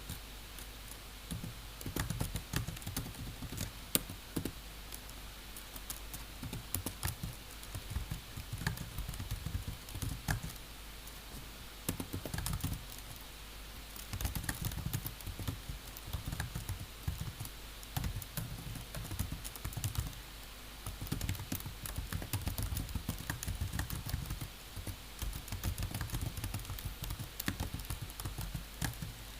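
Typing on a computer keyboard: quick runs of key clicks broken by short pauses, over a steady low hum.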